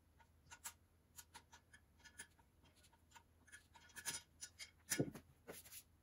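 Faint scattered clicks and scuffs of a rubber propane hose being twisted back and forth onto its gas regulator fitting, a little louder about four and five seconds in.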